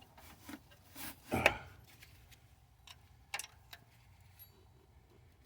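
Hand tools knocking and clanking against metal engine parts during engine disassembly. There are a few separate sharp knocks, the loudest cluster about a second and a half in and a couple of lighter ones later.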